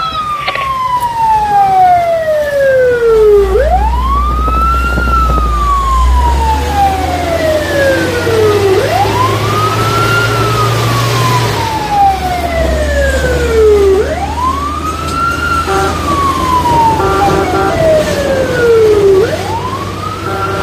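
Fire engine's wail siren heard from inside the cab. Each cycle rises quickly and falls slowly, repeating about every five seconds, over the truck's engine running. Short repeated beeps join in near the end.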